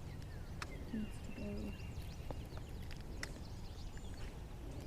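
Quiet outdoor ambience: a steady low rumble with scattered small clicks and ticks, and a brief faint voice about a second in.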